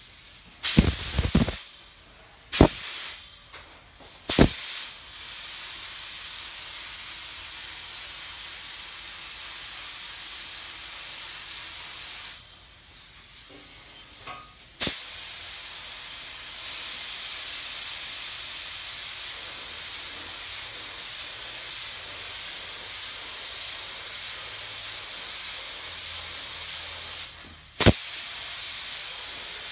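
Gravity-feed paint spray gun hissing steadily with compressed air as clear coat is sprayed onto a motorcycle fender, cutting out for a couple of seconds about halfway through and then starting again. Sharp clicks stand out, several in the first few seconds, one as the spraying resumes and one near the end.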